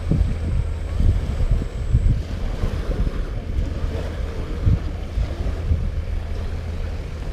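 Wind buffeting the microphone in uneven gusts, with a steady wash of surf behind it.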